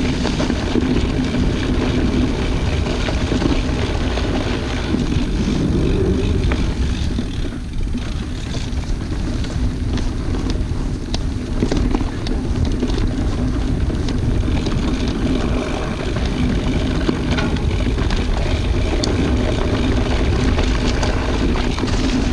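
A mountain bike rolling fast down a dirt single-track strewn with leaves: a steady low rumble of tyres and wind on the microphone, with occasional knocks and rattles from roots and rocks.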